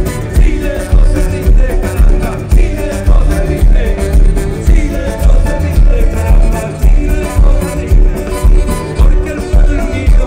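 Live band music at an outdoor concert: a man singing over acoustic and electric guitars, with a heavy low beat pulsing steadily underneath.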